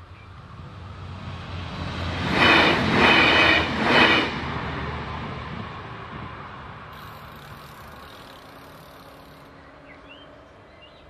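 Regional Express train passing over the level crossing. It grows louder, peaks in three close surges with a bright whine about two to four seconds in, then fades slowly away.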